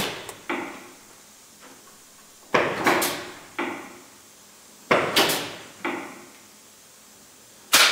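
Double-acting pneumatic cylinder on a training board cycling: each stroke is a sharp clack with a short hiss of air venting from the valves, the outstroke followed within about a second by quieter clacks as the cylinder returns to its start position by itself. Three such strokes, about two and a half seconds apart.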